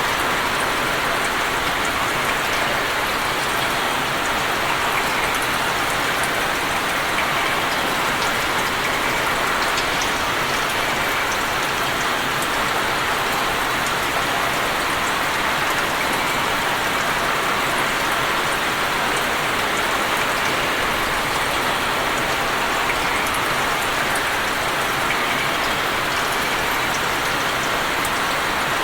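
Steady rain falling on open water: an even hiss of many drops with faint individual drop ticks.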